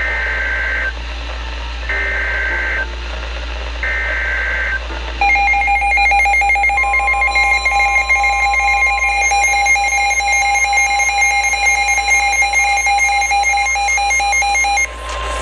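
Emergency Alert System signal on NOAA Weather Radio: three one-second bursts of the SAME digital header, a warbling two-tone data screech, about two seconds apart. They are followed by the long, steady warning alert tone, held for about ten seconds before it cuts off, announcing a severe thunderstorm warning.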